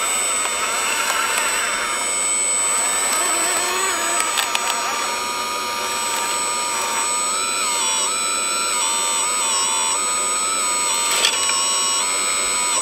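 Small electric motors of 1/14-scale RC construction machines whining, the pitch stepping up and down as the throttle changes, with a few sharp clicks.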